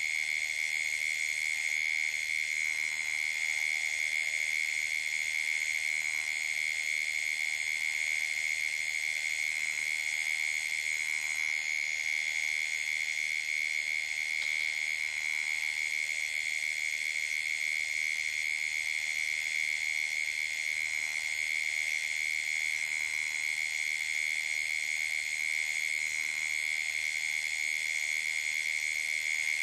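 Night chorus of calling animals at a waterhole: a steady, shrill, high-pitched trilling that does not let up, with fainter higher trills layered above it.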